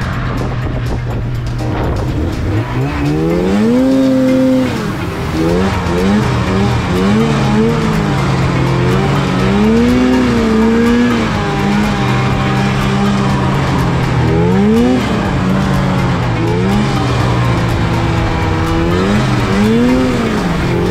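Snowmobile engine running under throttle, revving up and down again and again over a steady low drone.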